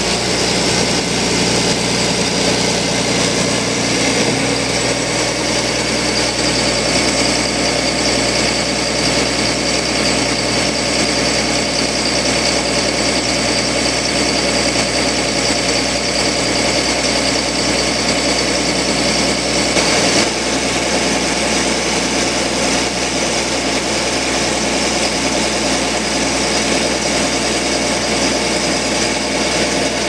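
Diesel engine of a 2006 Blaw-Knox PF-4410 asphalt paver running steadily at an even speed.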